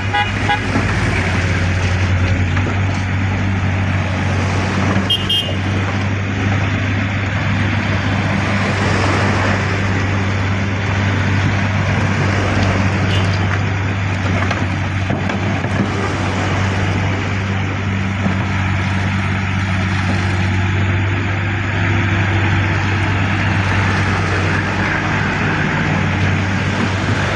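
A large engine running steadily with a low, even hum, over the general noise of heavy vehicles.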